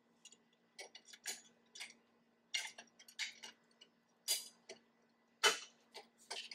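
Irregular metal clicks and knocks from the parts of a Rolla Convoy platform bike rack as a tube is pulled out and slid back into the rack's frame.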